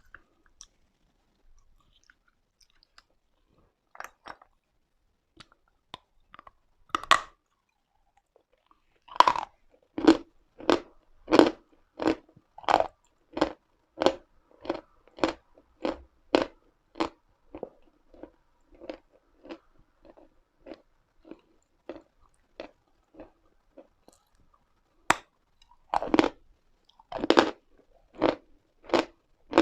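Pieces of Uslada edible chalk being bitten and chewed close to the microphone. A few single crunches come first, then steady chewing at about one and a half crisp crunches a second from about nine seconds in. After a short pause the bites grow louder near the end.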